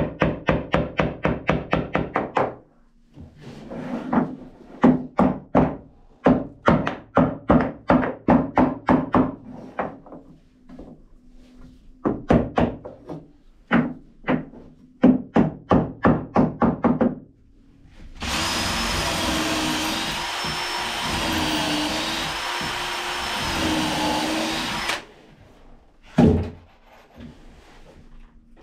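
Hammer striking a painted wooden batten in quick runs of about four blows a second, tapping it into place, with short pauses between runs. About eighteen seconds in, a cordless drill runs for about seven seconds, its speed wavering, then stops; a single thunk follows.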